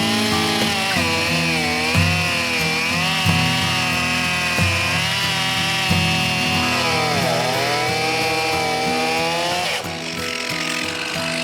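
Stihl MS362 two-stroke chainsaw cutting through oak rounds at high revs, its pitch sagging and recovering as the chain loads up in the wood, then dropping about ten seconds in as it comes out of the cut. It holds its revs without bogging, running well on freshly replaced fuel lines.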